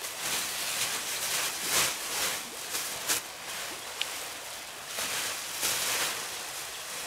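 Irregular rustling and scraping in uneven surges every half second to a second, over a steady hiss, with a short sharp click about four seconds in.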